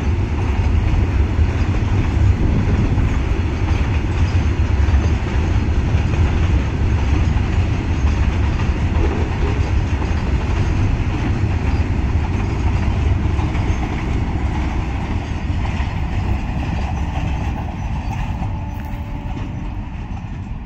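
Goods train of open and flat wagons rolling past on the rails, a steady low rumble of wheels and wagons that fades over the last few seconds as the end of the train draws away.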